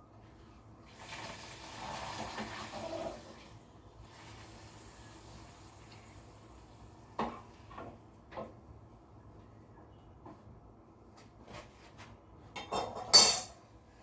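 Pappadams frying in hot oil in a pan: a burst of sizzling about a second in that lasts about two seconds, then a few sharp clicks of a utensil against the pan, and a louder burst of sizzle and pan noise near the end.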